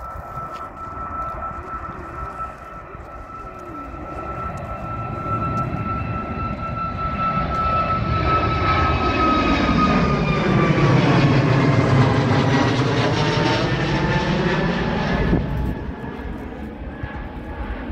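Twin-engine jet airliner climbing out after takeoff and passing overhead. The engine noise builds to its loudest about twelve seconds in, and a high fan whine drops in pitch as the plane goes over. The noise falls away a few seconds later.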